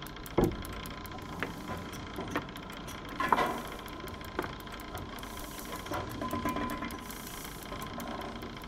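Steady mechanical running with irregular sharp clicks and knocks, the loudest a little past the middle.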